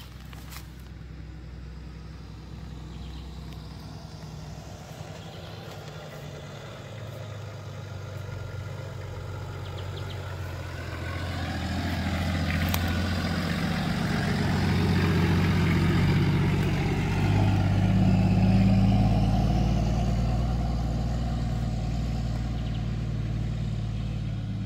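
Four-wheel-drive vehicle driving, its engine hum and tyre noise steady at first, growing louder from about halfway through and easing off near the end.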